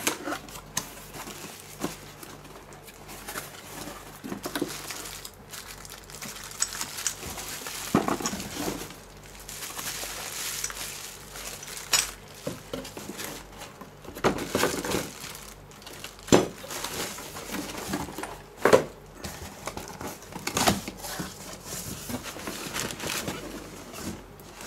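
Clear plastic packaging crinkling and cardboard boxes rustling and knocking as a boxed part is unwrapped by hand, in irregular bursts with sharp clicks.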